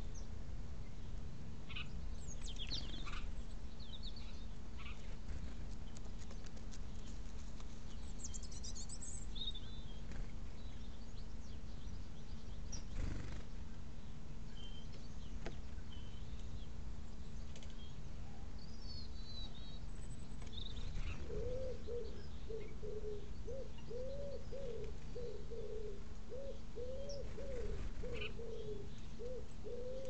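Small songbirds chirping now and then with short high calls, then from about two-thirds through a pigeon cooing in a low, repeated phrase. A steady low hum runs underneath.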